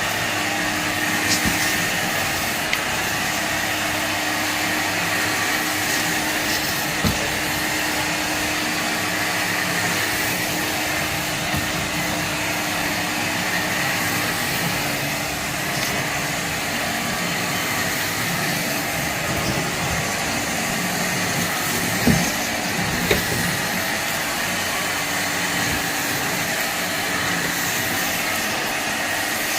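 Shark vacuum cleaner running steadily over a dirty carpet, with a few short sharp knocks and crunches as debris is sucked up.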